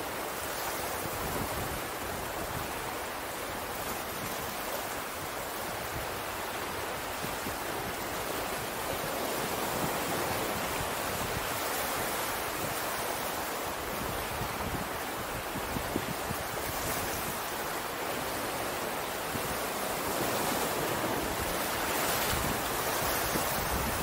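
Ocean surf washing ashore: a steady hiss of waves that swells and eases slowly, with a little wind rumble on the microphone.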